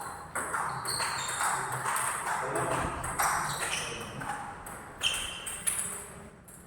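Table tennis rally: a plastic ball struck by rackets and bouncing on the table, one racket faced with short-pimple rubber. The sharp hits come about once every half second to a second.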